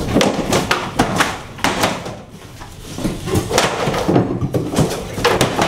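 Irregular knocks, thuds and scraping of wooden floor panels being pried up and shifted on a plywood subfloor, with a brief lull in the middle.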